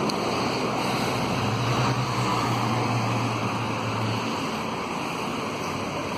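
Street traffic at an intersection: a car drives past close by, its engine a low steady hum that fades out about four seconds in, over a steady rush of traffic noise.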